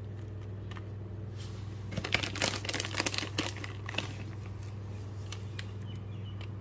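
Crackling and crinkling for about two seconds, starting about two seconds in, as shredded cheddar cheese is handled and scattered onto a paper-lined baking tray. A steady low hum runs underneath.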